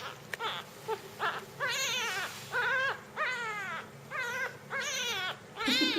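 A five-day-old jungle cat kitten mewling: a string of about seven high, wavering cries, each around half a second long.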